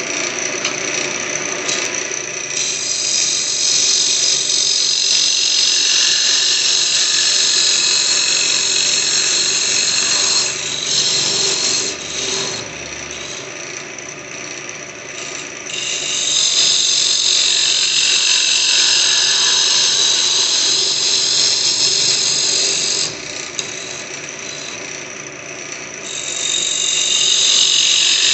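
Wood lathe running with a steady motor hum while a turning tool cuts the spinning wood, making a loud hiss in long passes. The cutting hiss drops away twice for a few seconds while the motor hum carries on.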